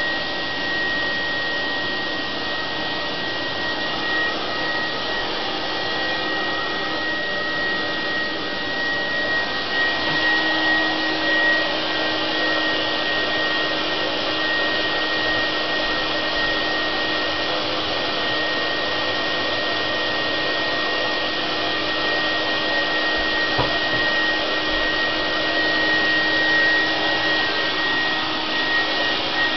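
Steady whir of a motor-driven machine with a fan, with a thin high whine throughout and a low hum joining about ten seconds in.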